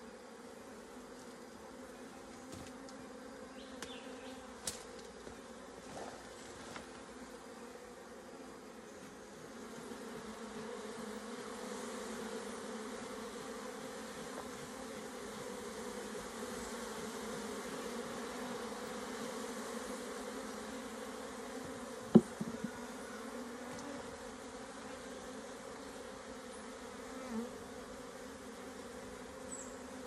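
Honeybees buzzing in a steady hum over a hive box of freshly cut-out comb, swelling slightly about ten seconds in. A single sharp knock about two-thirds of the way through.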